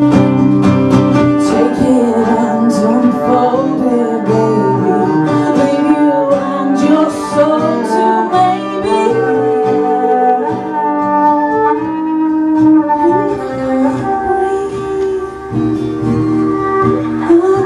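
Acoustic rock band playing live: plucked acoustic guitar with a cello, the melody sliding up and down in pitch.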